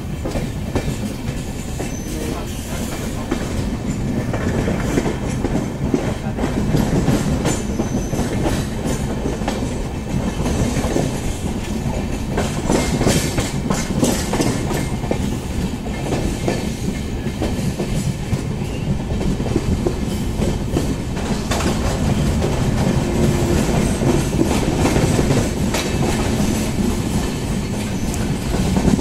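Passenger express train running at speed, heard from inside a coach: a steady rumble with the wheels clattering over rail joints.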